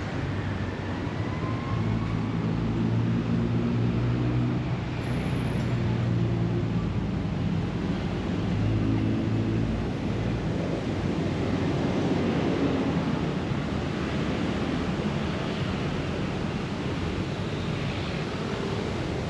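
Roadside city traffic: the steady wash of passing cars and motorbikes, with the low hum of a vehicle engine strongest in the first half.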